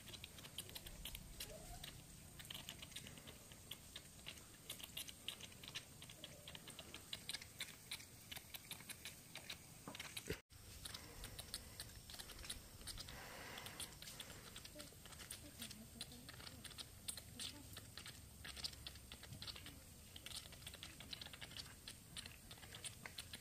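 Faint, irregular clicks and taps, several a second, with a brief dropout about ten seconds in.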